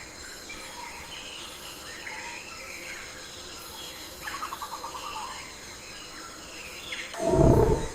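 Birds chirping and calling over a natural outdoor background, with a quick trill about halfway through. Near the end a loud, deep low sound swells for under a second and stops.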